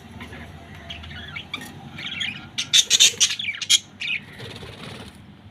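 Pet parrots chirping and squawking, with a loud cluster of shrill calls around the middle.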